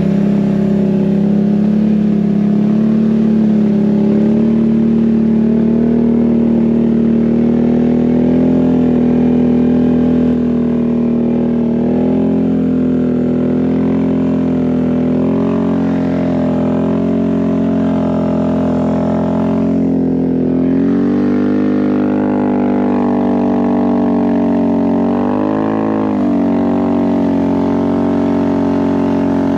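Can-Am Outlander Max XT 850 ATV's V-twin engine running under way on Apache 360 LT snow tracks, its pitch rising and dipping several times as the throttle changes.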